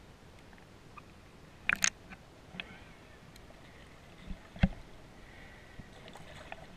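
Muffled underwater sound picked up through an action-camera housing held below the surface: a low steady water hiss broken by a few sharp knocks and clicks, the loudest a quick pair about two seconds in and a single one about four and a half seconds in.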